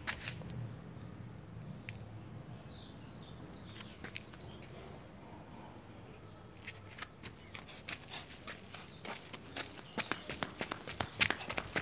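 A Pomeranian's claws clicking on a concrete floor as it walks and trots about. The clicks are sparse in the middle and come in quick, close runs through the second half.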